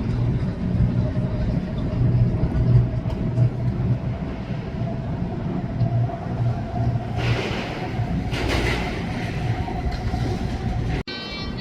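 A long CN freight train rolling past, with a steady low rumble of wheels on the rails and a hissy stretch about seven to nine seconds in. Near the end it breaks off suddenly into pipe music.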